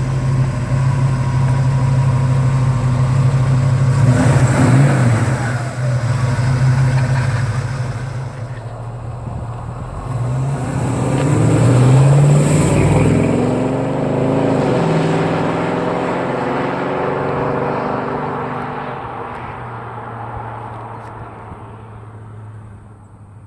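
1970 Ford Torino GT's 351 Cleveland four-barrel V8 running, with two swells as the car passes close, about four and twelve seconds in, the second the loudest, then fading as it drives off down the road.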